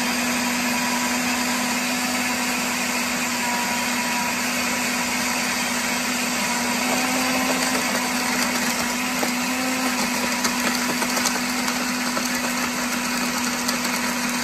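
Countertop blender running steadily at one speed, blending coconut cream into a thin white liquid: an even motor whir with a constant low hum and no change in speed.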